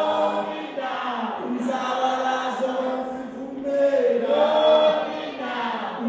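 A group of voices singing a cappella in harmony, in long held phrases that swell to a louder note about four seconds in.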